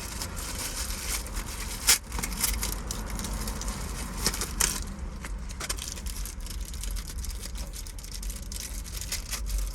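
Hands working a steering-wheel paddle shifter assembly: scattered small clicks and knocks of plastic parts, with one sharper knock about two seconds in, over a steady low hum.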